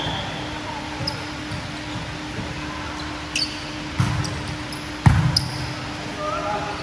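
Volleyball being struck during a rally in a gym: two sharp smacks of hands on the ball, about four and five seconds in, the second the louder, echoing in the hall, with lighter knocks and short squeaks in between.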